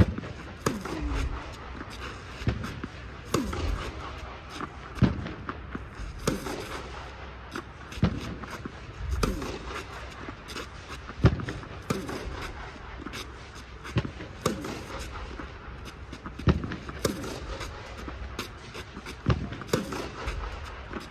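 Tennis balls being hit with a racket and bouncing on a clay court, a sharp pop about every one to two seconds, echoing under a fabric air dome.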